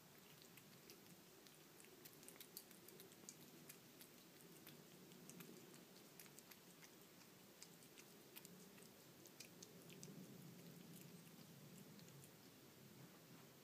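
A cat licking and chewing wet canned cat food from a plate: faint, quick, irregular smacking clicks that thin out and stop near the end.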